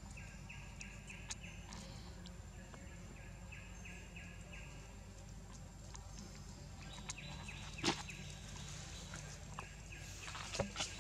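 Outdoor ambience: a steady low hum under runs of short high chirps repeated about four times a second, with a few sharp clicks and taps, the loudest one about eight seconds in and a cluster near the end.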